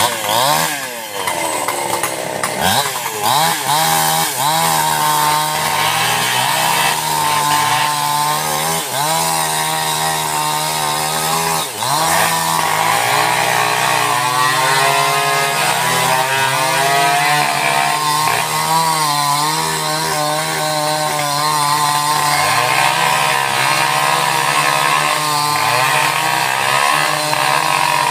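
Two-stroke chainsaw cutting into a thick felled tree trunk. The engine revs down and up several times in the first few seconds, then holds at high revs under load through a long cut, with brief dips in engine speed every few seconds.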